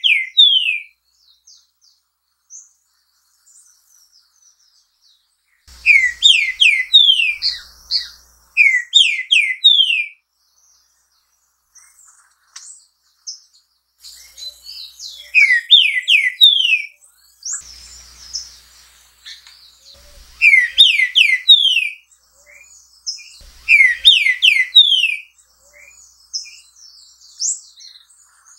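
Green-winged saltator (trinca-ferro) singing: loud phrases of three or four quick rising whistled notes, repeated about half a dozen times with pauses of a few seconds between them.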